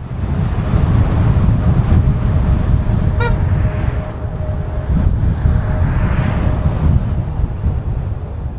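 Wind buffeting the microphone of a camera mounted on a moving car's bonnet, a loud rough low rumble, with a faint steady hum under it. About three seconds in comes one brief, sharp toot.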